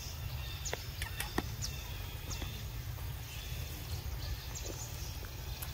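Outdoor ambience: a steady low rumble with scattered faint clicks and a few short, high bird chirps.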